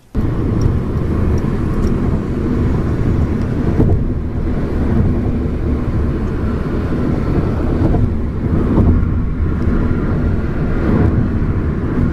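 Steady road and wind noise of a compact car moving at freeway speed, a loud low rumble.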